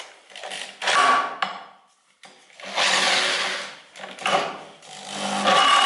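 Cordless drill spinning an old engine over through the starter motor's armature shaft in short bursts, about four times, then running steadily near the end. This is the first cranking attempt, and the engine does not catch.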